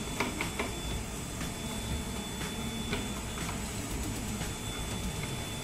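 End mill resharpening grinder running with a steady high whine while its wheel faces the end mill's cutting end. A few light clicks about half a second in as the collet fixture is pushed into position.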